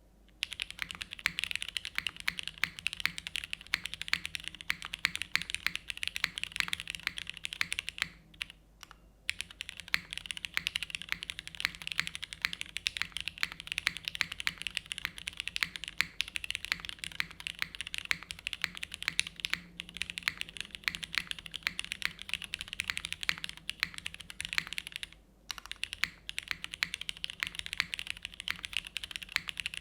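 Continuous fast typing on a Geonworks F2-84 custom mechanical keyboard with linear Cherry MX2A Black switches, built plateless with GMK Mono keycaps: a steady rush of keystroke clicks and clacks, with two brief pauses.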